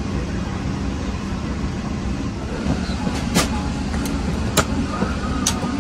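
Steady airliner cabin noise with a low hum inside a Boeing 777-300ER suite. From about halfway in come several sharp clicks as a storage compartment's metal latch is pulled and its door opened.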